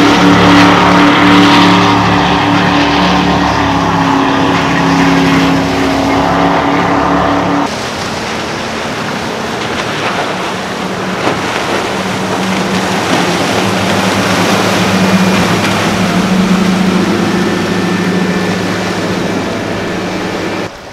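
Powerboat engines running at full throttle as boats accelerate away. A loud, steady engine drone comes first. About eight seconds in it cuts to a second boat with a lower, quieter engine note and more rushing water and wind noise.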